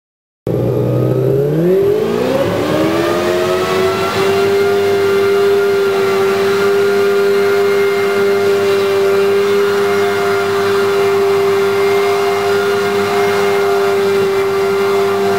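Martin Jetpack's ducted fans and two-stroke V4 engine running at flight power. The sound cuts in about half a second in and rises in pitch over the next two seconds. It then holds a loud, steady note while the jetpack hovers and flies.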